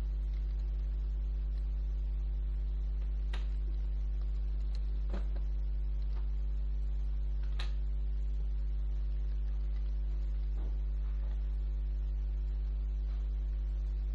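Steady low electrical mains hum with a stack of evenly spaced overtones, the loudest sound, with a handful of short sharp computer-mouse clicks scattered through it.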